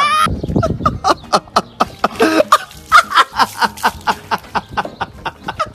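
A bag of milk bursting and splashing near the start, followed by rapid, choppy bursts of laughter and coughing.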